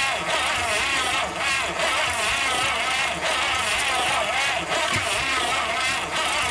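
1956 Packard 374 V8 turning over and firing on gas poured into the carburetor, unmuffled through open exhaust manifolds, running rough and pulsing while it puffs smoke.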